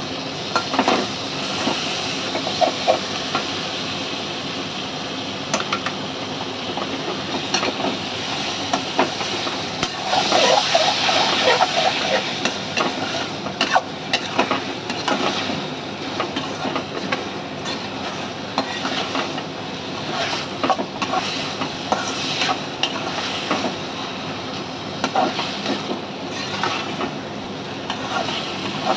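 Chopped tomatoes sizzling in a hot metal kadai while a metal ladle stirs them, scraping and clinking against the pan. A steady hiss runs under frequent sharp ticks, and it grows louder for a couple of seconds about ten seconds in.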